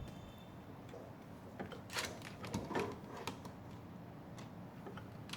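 Light clicks and rustles from handling a plastic Molex wire-harness connector and the tester's probe leads, bunched together about two to three seconds in.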